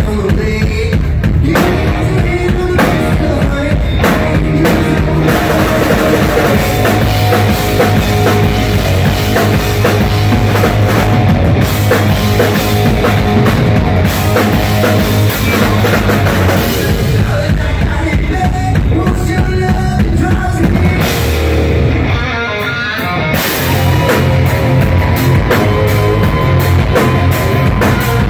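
Rock band playing live and loud: distorted electric guitars over a drum kit, with a short drop in the playing about two-thirds through before the full band comes back in.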